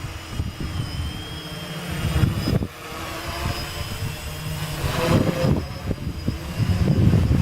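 Gaui 500X quadcopter's electric motors and propellers whining in flight, the pitch shifting as the motors speed up and slow down, a little after halfway. Heavy wind rumbles and buffets on the microphone throughout.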